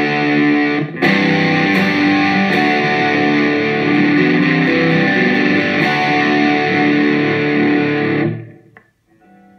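Electric guitar from a 1984 Made-in-Japan Fender Stratocaster fitted with DiMarzio Area pickups, played through a Marshall amp model on a Line 6 Pod HD500X into a Roland amp. The playing breaks briefly just under a second in. It stops near the end, where a few soft notes ring with no hum or buzz: the new pickups are very quiet.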